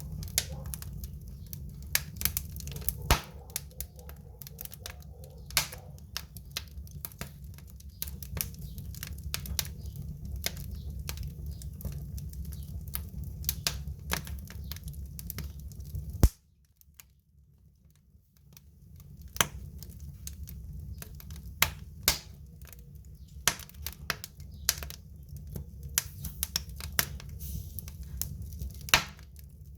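Wood fire crackling in a fireplace or stove: irregular sharp pops and snaps over a steady low rumble. The sound drops out almost completely for about two seconds just past halfway, right after a loud pop, then the crackling resumes.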